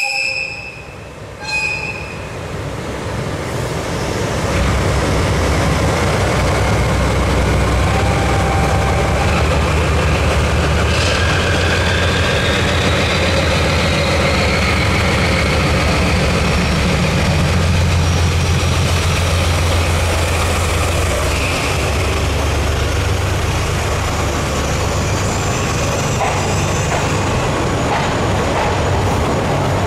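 JNR Class DE10 V12 diesel-hydraulic locomotive pulling away with a train, its engine building within the first few seconds to a steady, loud low drone that holds throughout. A faint rising whine comes in around the middle, and toward the end the coaches roll past with some wheel noise. A brief high tone sounds at the very start.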